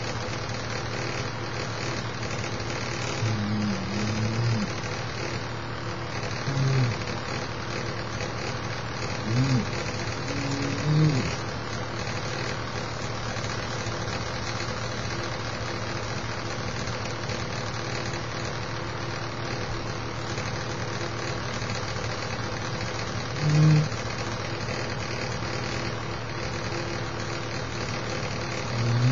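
A steady hum runs throughout. A man's short, wordless voice sounds rise above it several times, loudest about two-thirds of the way in.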